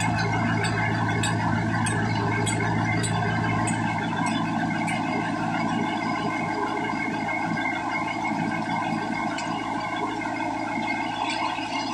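Concrete mixer pump running: steady machine noise with a low engine hum that drops away about four seconds in, and irregular clicks and knocks over the first few seconds.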